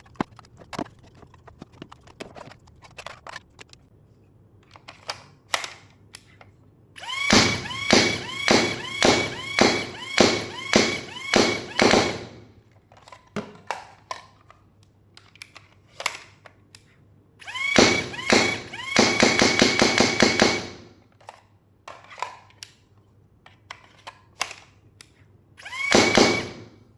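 AIT Lightning electric foam dart blaster firing a magazine of darts one shot after another, about two shots a second, each with a short rising motor whine. Later comes a faster run of shots, and a brief burst near the end, with small clicks of magazine handling between. The blaster is running on the last bar of its battery and has not yet cut out.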